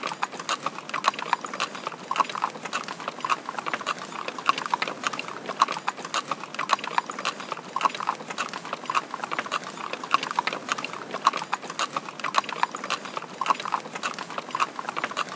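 Hooves of laden pack mules and donkeys clip-clopping as they walk, an uneven stream of several sharp hoof strikes a second.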